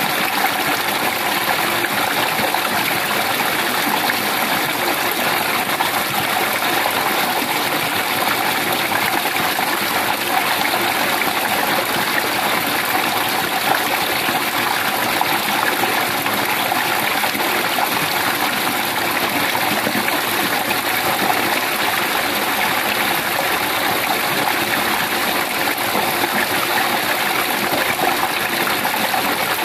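A steady rushing of running water, even and unbroken throughout.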